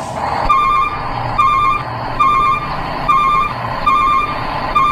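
Toy dump truck's electronic reversing beeper: a warbling beep repeating six times, a little under a second apart.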